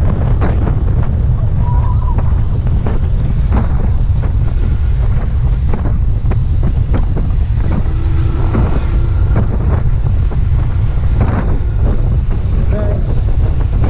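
Heavy wind buffeting the microphone on a moving vehicle: a loud, steady low rumble with scattered short knocks.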